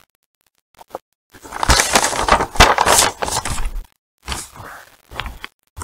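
A printed paper menu handled and put down close to the microphone: a burst of crackling and rustling lasting about two seconds, followed by a few lighter rustles.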